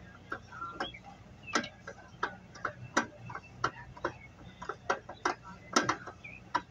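Sharp metallic clicks and taps, about one or two a second at uneven spacing, from hand tools working the motor mount of an exhaust fan.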